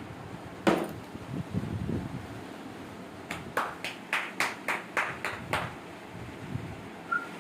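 One loud sharp knock, then a quick run of about nine sharp taps at about four a second, and a short whistle near the end.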